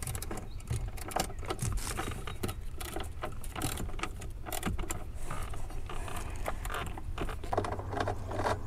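Irregular small metallic clicks and rattles of a hand ratchet and socket working a bolt loose under a truck's dashboard.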